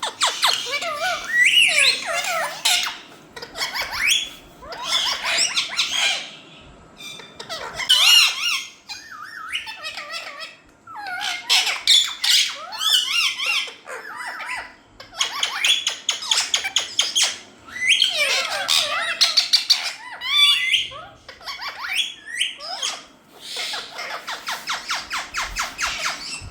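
Indian ringneck parrot calling and chattering in bursts, with quick rising and falling squawks and some fast rattling runs.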